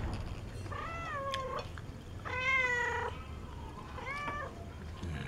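Domestic cat meowing three times; the middle meow is the longest and loudest.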